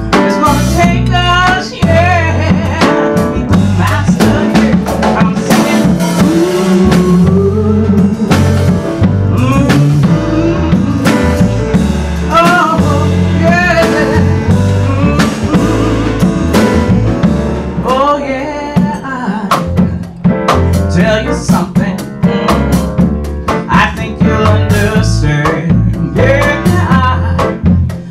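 Live small-group jazz: a woman singing into a microphone over grand piano and drum kit, with a moving low accompaniment line.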